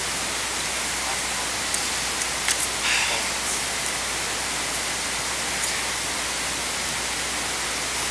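Steady hiss of recording noise and room tone, with a few faint short clicks and rustles about two to three seconds in.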